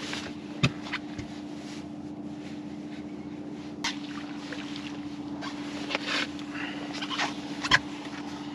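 Boat's outboard motor running steadily at trolling speed while a walleye is reeled in and lifted aboard. A few sharp knocks from handling, the loudest near the end.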